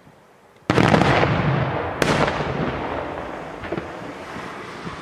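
Daytime aerial fireworks shells bursting: a sudden loud salvo of bangs and crackling starts just under a second in and slowly dies away, with another sharp bang about two seconds in and a smaller one near the end.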